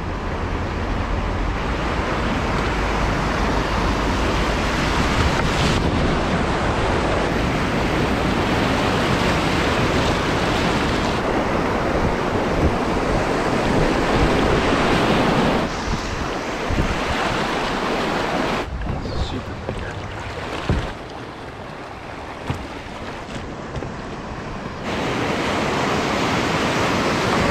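Whitewater rushing and splashing around a kayak's bow, with wind buffeting the microphone. The rush drops back for a stretch past the middle and swells again near the end.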